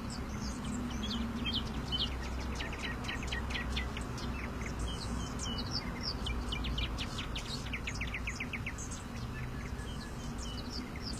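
Small birds chirping, with many short, quick chirps and rapid trills overlapping throughout, over a steady low rumble.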